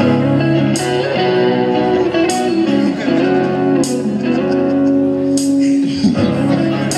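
Instrumental intro of a rap backing track: a sustained melody over a slow beat, with a sharp hit about every second and a half.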